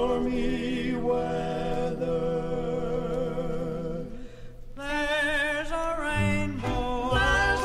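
Male gospel quartet holding a long chord with vibrato, which dies away about four and a half seconds in; the music then starts again with new held notes and a bass line.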